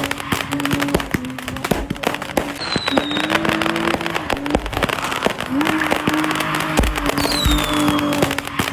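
Background music with a looping sliding tune, over many quick crackling pops.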